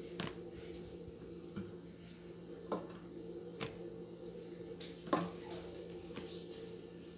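Cooked chayote halves being moved with a fork from a metal pot into a plastic bowl: about five light knocks and taps of fork and vegetable against the pot and bowl. A steady low hum runs underneath.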